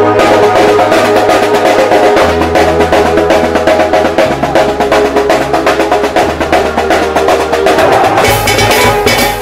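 A musik patrol drum troupe playing a fast, dense beat on many hand-carried drums and a large bass drum. Underneath is a low held bass note that shifts pitch every couple of seconds.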